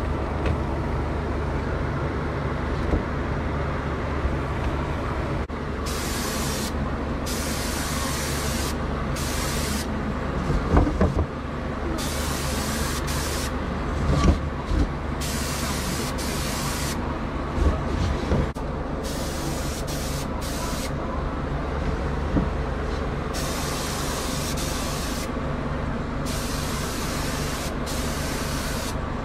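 Gravity-feed spray gun hissing in repeated bursts of one to two seconds as it lays a dust coat and then a first coat of 2K clear coat. Under the bursts, an air compressor hums steadily.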